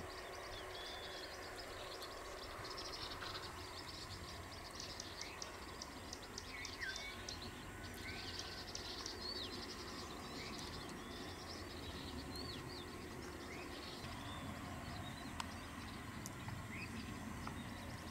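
Birds chirping and calling, with many short high chirps and a few curved whistled notes that are busiest around the middle, over a steady low background noise.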